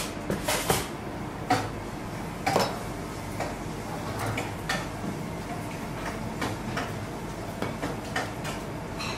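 Clinks and knocks of glass plates and metal utensils on a stainless steel kitchen counter, with a few sharp ones in the first three seconds and lighter ones after, over a steady background hum.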